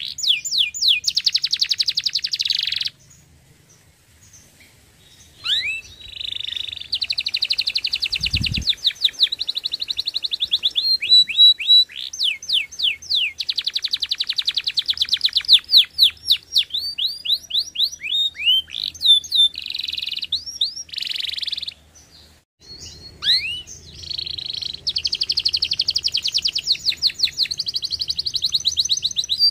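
Domestic canary singing long, high-pitched runs of fast trills and repeated rising notes, broken by a pause of about two seconds near the start and a short pause near the end. A single low thump sounds about eight seconds in.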